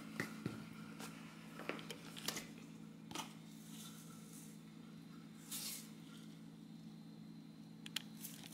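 Faint kitchen handling noises at a cutting board: a scatter of small clicks and taps and a brief soft rustle about halfway through, over a low steady hum.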